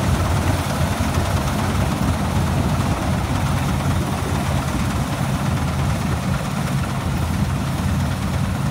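Malkit 997 4x4 combine harvester running steadily while cutting crop in a wet field, a constant deep engine drone with the machine's working noise over it.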